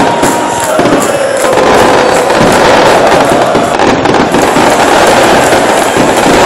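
Loud football-stadium crowd noise from among the fans in the stands, a mass of voices under a dense, rapid crackle.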